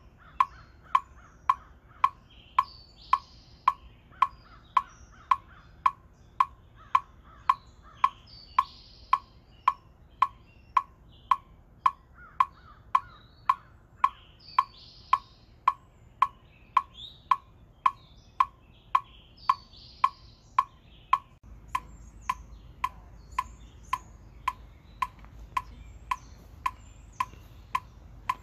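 Metronome clicking at a steady tempo, about two clicks a second, with birds chirping in the background.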